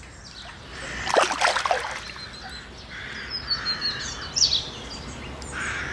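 Small birds chirping over steady outdoor background noise, with a short noisy burst about a second in.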